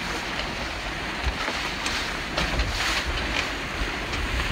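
Wind buffeting the microphone over the rush of water along the hulls of a Corsair 24 trimaran beating into a fresh wind at about 7 knots, with a few brief louder splashes of spray about two to three seconds in.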